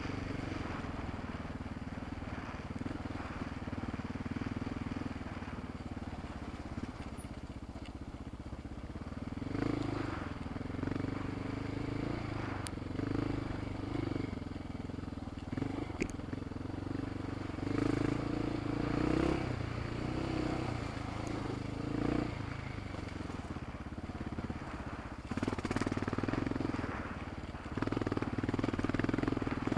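Motorcycle engine running on a rough dirt trail, its revs rising and falling again and again, with a couple of sharp clicks around 13 and 16 seconds in.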